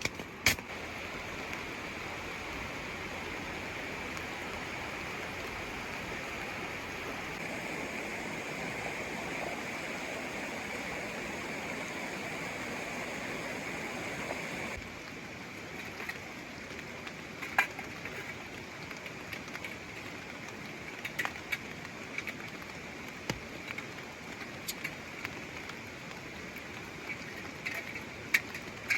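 Steady rush of rain and a mountain stream. About halfway through it changes abruptly to a slightly quieter rush with a few scattered sharp taps.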